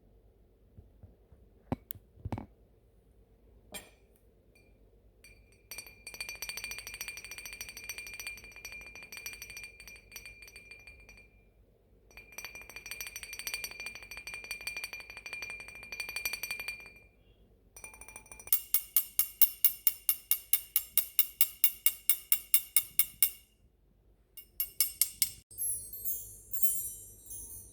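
Clinking and ringing from small hard household objects. After a few isolated clicks come two spells of a steady high ringing tone with a fast rattle. Then a run of quick, even clinks, about six a second, and scattered tinkling near the end.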